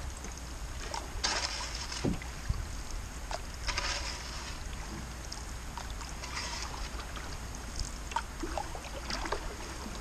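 Canoe paddle strokes: four swishes of water, about two and a half seconds apart, as the canoe glides along a calm river. A few light clicks come between them, over a steady low rumble.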